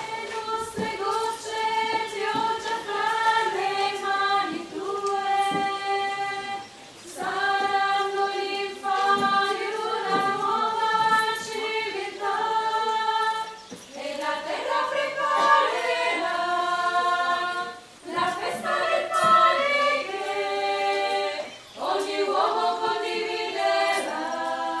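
A choir sings an offertory hymn at Mass, in several phrases with short breaks between them.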